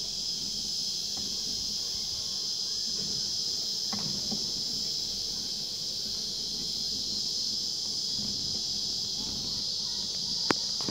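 Steady high-pitched chorus of insects, unbroken throughout, with a single sharp click near the end.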